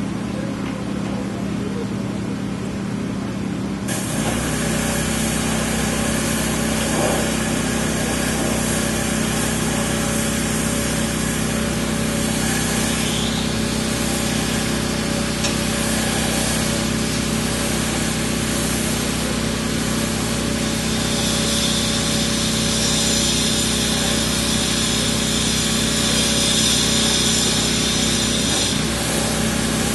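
A power tool working concrete starts about four seconds in and runs steadily, over a constant machine hum. In the last third it takes on a higher whine.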